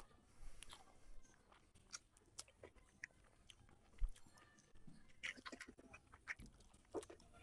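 Close-miked eating sounds: chewing and squelching as a hand mixes rice with curry, with scattered small clicks and snaps. One sharp knock about four seconds in, as the hand reaches to the side plate.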